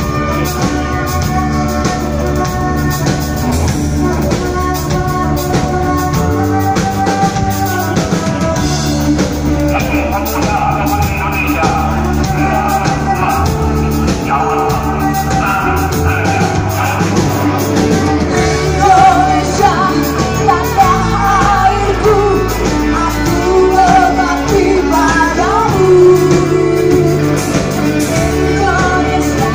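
Live pop-rock band playing, with electric guitars, bass, drum kit and keyboard behind a woman singing lead into a microphone.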